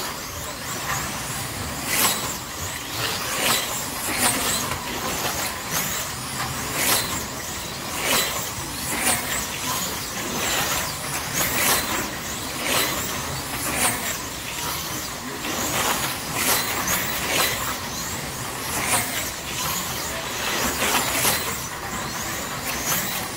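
Electric slot car motors whining as race trucks lap a multi-lane slot car track, each pass swelling and fading, roughly once a second.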